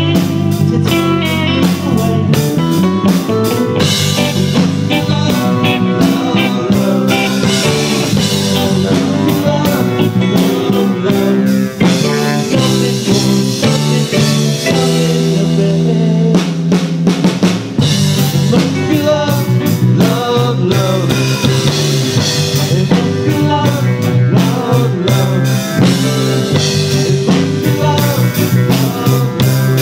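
A live rock band playing, with a drum kit and an electric bass guitar.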